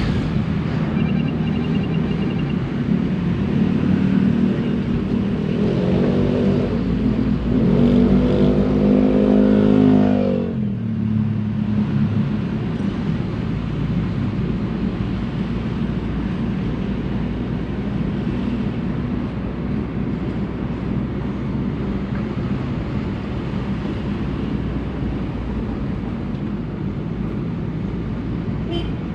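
2006 Suzuki APV's four-cylinder petrol engine being revved twice, the second rev held higher for a few seconds, then dropping back sharply about ten seconds in and idling steadily.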